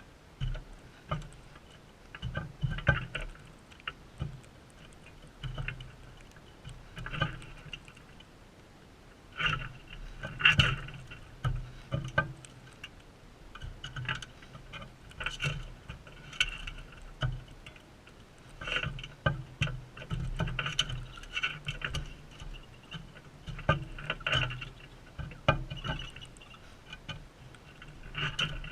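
Crimson rosellas feeding close to the microphone: irregular taps, knocks and scrapes of beaks pecking and cracking seed and claws shifting on the feeder, sometimes several taps in quick succession.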